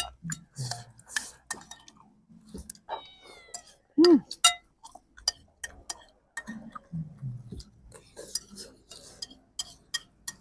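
A metal spoon clinking and scraping on a plate while a man eats, with chewing and mouth sounds between the clicks. About four seconds in comes a short loud tone that rises and falls in pitch.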